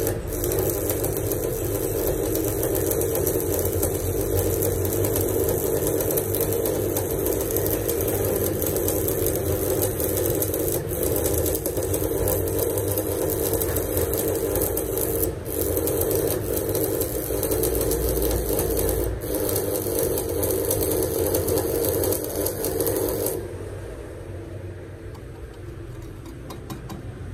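Stick-welding arc from a Red Go 120 transformer arc welder burning a 3.2 mm electrode at a little over 100 A, a steady crackling sizzle. It cuts off suddenly near the end when the arc is broken.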